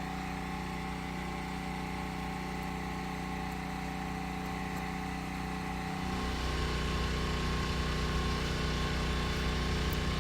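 Steady machine hum made of several held tones, growing deeper and a little louder about six seconds in.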